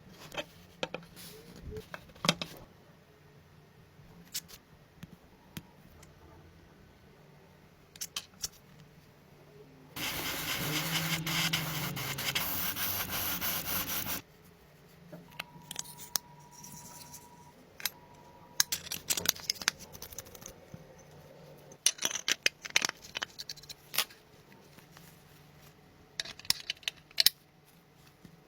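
Hands-on car restoration work: scattered clicks, taps and rubbing from tools and parts being handled, with a steady spray-like hiss lasting about four seconds, starting about ten seconds in.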